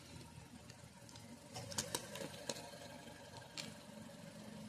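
A few faint, sharp clicks and taps, clustered about two seconds in with one more later, over a low steady hum.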